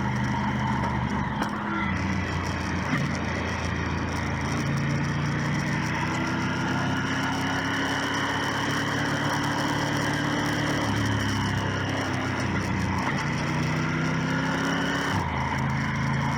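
Motorcycle engine running while riding. Its pitch climbs as it pulls and drops sharply at gear changes about 1.5 s in, around 11 s and near the end, over steady wind and road noise.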